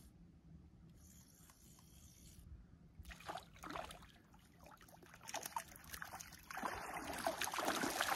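Water splashing as a hooked fish thrashes at the surface while it is reeled in. Scattered splashes begin about three seconds in and grow into dense, louder splashing near the end as the fish is brought into the shallows.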